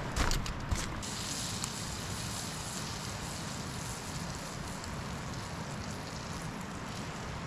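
Butter sizzling in a hot frying pan over a campfire, a steady hiss that grows brighter about a second in. A few sharp knocks and crackles come in the first second.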